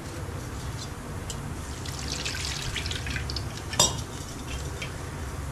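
Liquid poured into a pot of frying spice paste, crackling and sizzling, thickest midway, with one sharp knock a little under four seconds in.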